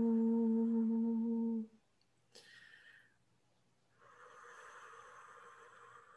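A person humming one long, steady note that cuts off about one and a half seconds in, followed by near quiet with a faint short sound and a soft hiss.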